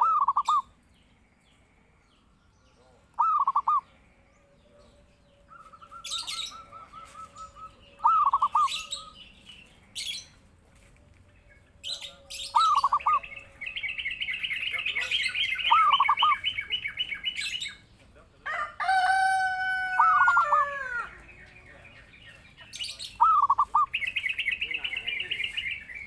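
Zebra dove (perkutut) cooing in short, quick-stuttered phrases every few seconds. A rooster crows about two-thirds of the way through, and a smaller bird trills rapidly and high in the background.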